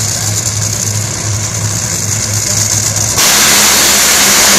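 Two Top Fuel dragsters' supercharged nitromethane V8 engines idling on the starting line with a steady low throb. About three seconds in they launch at full throttle, and the sound jumps abruptly to a much louder, rough blast of noise.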